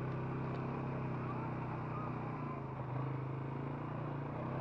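Four-wheeler (ATV) engine running steadily while riding over grass.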